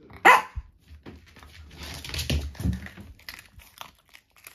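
Yorkshire terrier barking on the 'speak' command: one loud, short bark just after the start, then quieter sounds from the dog a couple of seconds later.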